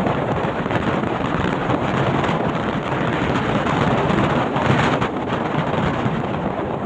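Heavy rain falling, with wind buffeting the microphone: a steady, loud noisy rush.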